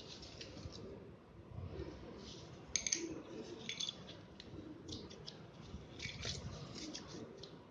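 Scissors and cardboard pieces being handled on a tile floor: scattered light clicks, taps and scrapes, with a sharper clatter about three seconds in.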